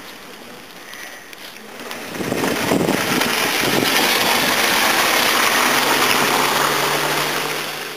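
A car driving past through wet slush, its tyres making a loud rushing hiss on the snowy road. The noise swells about two seconds in and stays loud.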